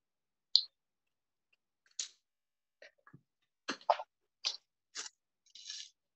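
Scattered short clicks and taps of drawing materials being handled: about eight separate sounds, with a brief hiss near the end.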